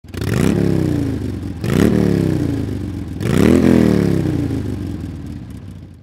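Motorcycle engine revved three times. Each blip climbs quickly in pitch and then winds down slowly, and the last one fades away near the end.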